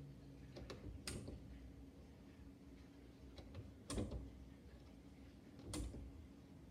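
Faint, irregular clicks and knocks, about five of them, the loudest about four seconds in and another near the end, over a low steady hum.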